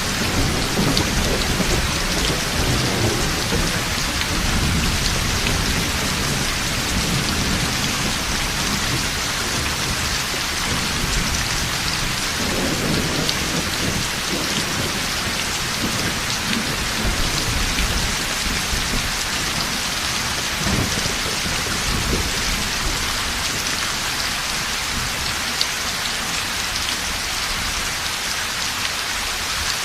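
Heavy rain falling steadily, with rolling thunder rumbling low in the first half and again in a couple of swells later before dying away.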